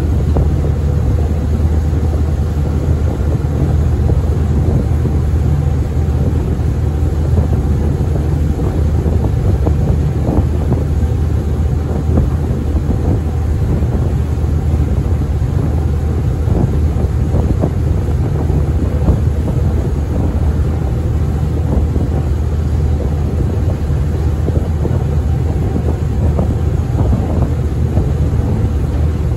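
Steady low drone of the ferry Tsui Wah No. 12's diesel engines under way, with noise of wind and water.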